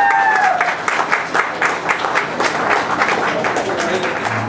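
Audience applauding with dense, irregular clapping. One voice holds a cheer over the first half second.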